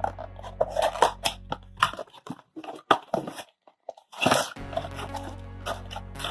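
Crinkling and crackling of a trading-card booster pack wrapper being handled and torn open, a rapid string of sharp crackles over steady background music.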